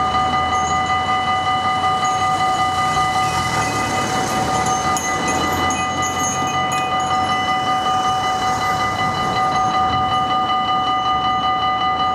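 Railway level-crossing warning bell ringing: a loud, steady two-tone electronic ring that pulses rapidly, signalling an approaching train while the crossing's barriers come down.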